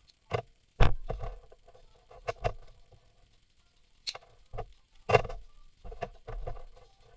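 Irregular sharp clicks and knocks of hard parts and tools being handled during a repair, about ten in all, with softer rustling between them; the loudest comes about a second in.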